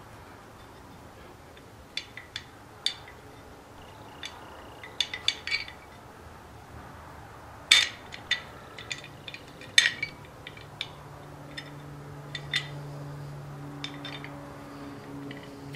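Steel bolts and cast-iron lathe parts clinking and knocking together as the bolts are worked into the cross slide's circular T-slot. The metal clinks come irregularly, with the two sharpest about eight and ten seconds in.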